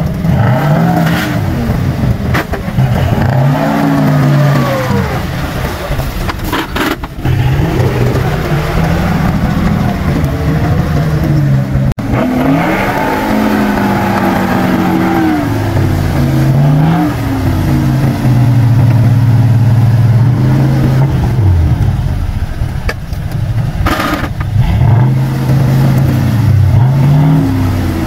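GAZ-66 truck engine revving and dropping back again and again, its pitch rising and falling several times, with one long stretch held at high revs in the second half.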